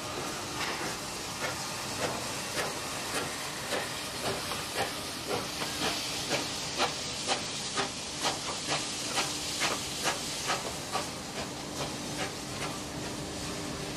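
NSWGR 59 class 2-8-2 steam locomotive 5910 pulling away, its exhaust chuffs quickening from about one and a half to over two beats a second over a steady hiss of steam.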